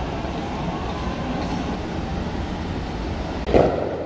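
Steady rumbling noise of a crowded street, with a single loud bang about three and a half seconds in.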